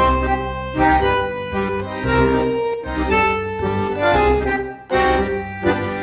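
Background music: held melody notes over a bass line, with a brief dip about five seconds in.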